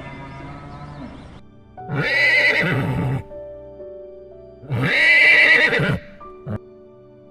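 Two loud horse whinnies, each lasting over a second, about three seconds apart, over soft background music.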